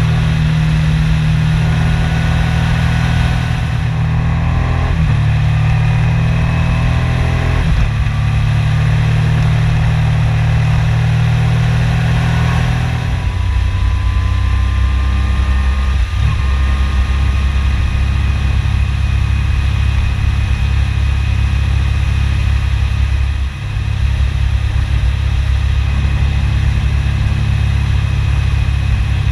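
Yamaha MT-09 Tracer's inline three-cylinder engine running under way, heard from a camera mounted on the bike. The engine note steps in pitch several times, with a brief dip about three quarters of the way through.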